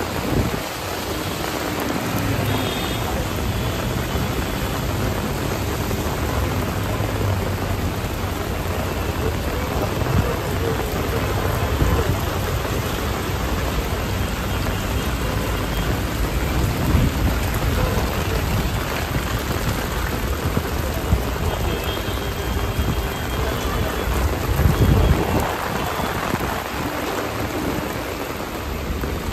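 Heavy rain pouring onto a wet road: a steady hiss, with low rumbles swelling now and then, the strongest near the end.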